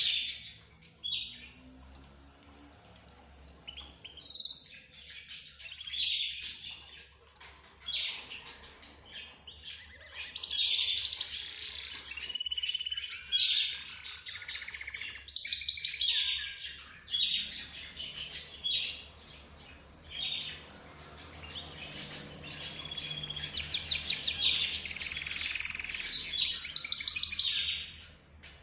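A mix of cage birds, budgerigars, lovebirds, zebra finches and a canary, chirping and chattering over one another in short, overlapping calls, with a quick run of ticking notes near the end.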